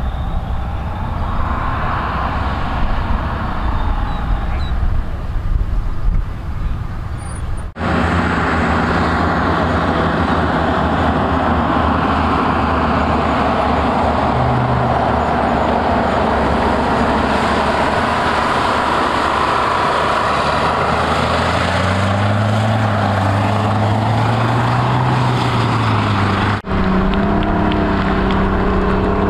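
Military vehicle engines running steadily, in three sections separated by abrupt cuts. In the middle section, toward its end, an engine's pitch rises and then falls back.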